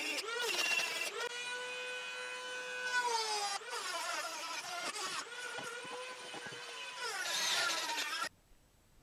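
Cordless drill boring holes in walnut, its motor whine rising and falling in pitch as the trigger and load change. The drilling cuts off suddenly near the end.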